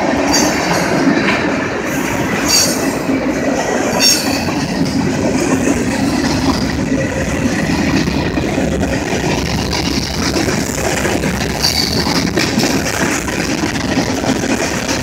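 Freight train's covered hopper cars rolling past, wheels running over the rail joints in a steady rumble, with a few brief high wheel squeals.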